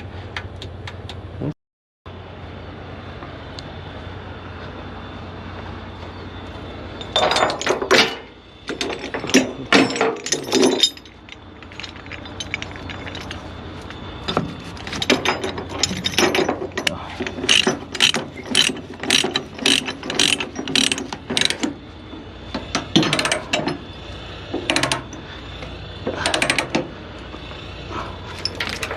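Ratchet load binder being cranked to tighten a tie-down chain: runs of quick ratcheting clicks, stroke after stroke, starting about seven seconds in, over a steady low hum.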